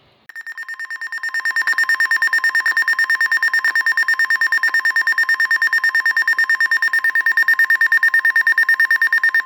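Weather alert radio's built-in alarm sounding: a fast-pulsing electronic beep that grows louder over the first second or so and then holds steady, announcing an incoming severe thunderstorm warning.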